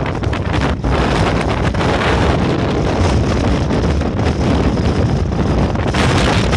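Strong wind buffeting the microphone over the rush of a passenger ferry pushing through choppy waves, with a steady low rumble underneath.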